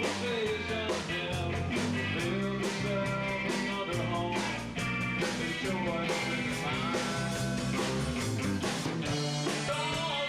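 A live rock band plays at full volume, with electric guitars through amplifiers, a drum kit keeping a steady beat, and a man singing the melody over them.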